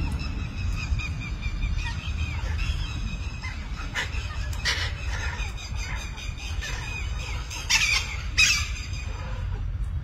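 A flock of Alexandrine parakeets calling, with many short chirps and chatter throughout and loud screeches about four seconds in and again near the end, over a steady low rumble.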